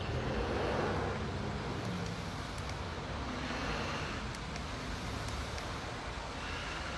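Steady background rumble and hiss with a low hum, swelling slightly about a second in, with a few faint ticks.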